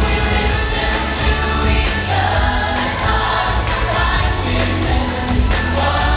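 Stage-show pop music: a group of voices singing over a strong bass line.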